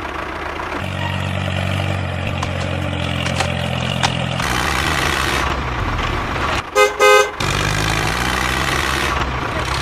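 Toy RC tractor's engine sound running steadily, its note shifting about a second in and again partway through, with two short horn honks about seven seconds in.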